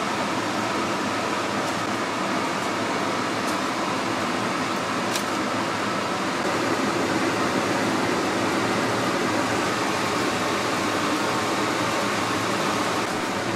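A fan running steadily with an even whirring hiss, with a faint clink about five seconds in.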